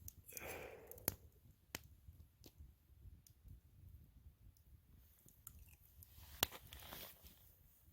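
Quiet background with a brief soft rustle near the start and a few sharp, isolated clicks and pops scattered through it.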